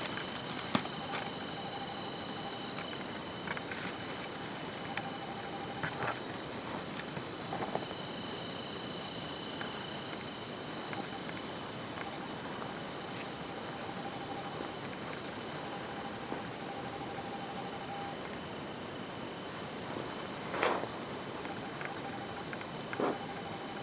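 Night insects trilling steadily, a continuous high-pitched drone with faster, even higher pulsing over it. A few scattered clicks and knocks, the loudest about a second in and near the end.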